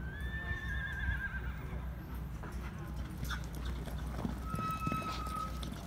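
Barrel racing horse galloping across the dirt arena, hoofbeats thudding. A long high whistle with a wavering end comes at the start, and a shorter steady whistle about four and a half seconds in, over low wind rumble on the microphone.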